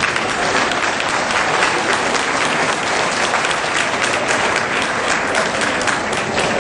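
An audience applauding, with many hands clapping steadily.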